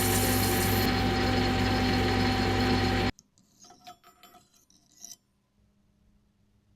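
Lathe running with a loud, steady machine noise that cuts off suddenly about three seconds in, followed by a few faint clinks and rubs of metal.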